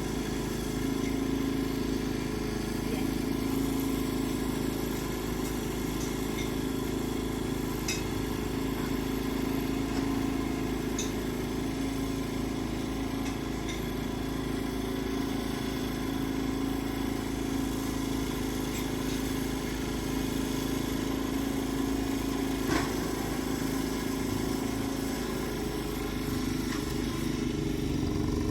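An engine running steadily at constant speed, with a few faint clicks.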